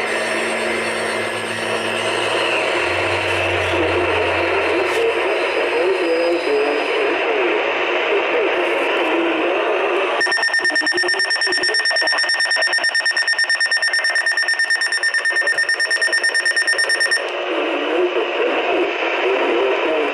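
Weather radio receiver playing a muffled, static-laden broadcast, then sounding its electronic alert beep about halfway through: a high, rapidly pulsing tone for about seven seconds before the hissy broadcast returns.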